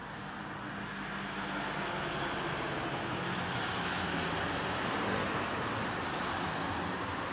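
A vehicle going past: engine hum and road noise grow louder over the first seconds, stay loud through the middle and ease slightly near the end.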